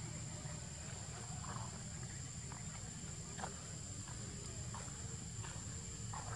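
Steady high-pitched insect drone over a low rumble, with scattered soft scuffs and taps of footsteps on dirt.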